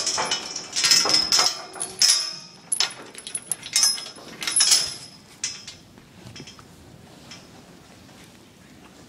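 Steel barn gate clanking and rattling as it is handled: a quick run of sharp metallic clanks with a ringing tail over the first five seconds, then only a few faint knocks.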